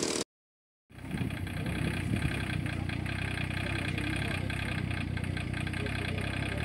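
A brief silence under a second long at the start, then an engine idling steadily.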